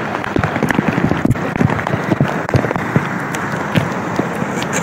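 Heavy rain and fast-flowing muddy floodwater: a loud, dense crackling patter.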